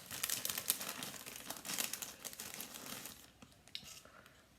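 Plastic crisp packet crinkling and rustling as it is handled, dense for about three seconds, then dying down to a few faint crackles.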